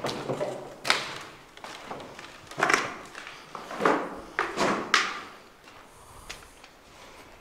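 Irregular thumps and knocks, about five in all and roughly a second apart, each with a short echoing tail.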